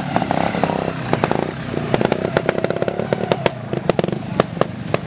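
Trials motorcycle engine running at low speed, its pitch rising and falling with the throttle, with many sharp pops and crackles.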